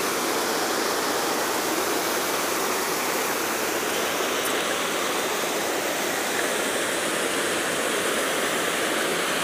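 Rushing water from the river or stream flowing beneath the footbridge, a steady, even rush.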